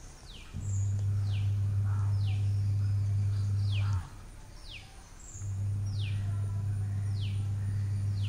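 A loud, steady low hum that runs for about three and a half seconds, stops for about a second and a half and starts again, under a bird's short high chirp falling in pitch and repeated about once a second.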